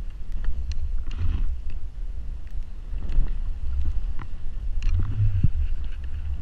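Steady low rumble of wind buffeting a pole-mounted camera's microphone as a skier turns through deep powder, with a few soft swishes of skis cutting the snow and scattered light clicks.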